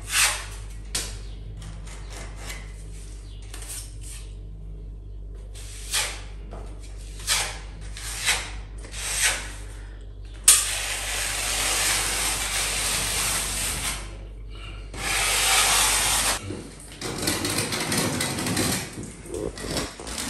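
A small hand tool scraping at a crack in a plaster ceiling, raking it open so it can be filled. It starts as a run of short, separate scrapes. About ten seconds in it turns to longer, continuous scraping, with a short pause near the end.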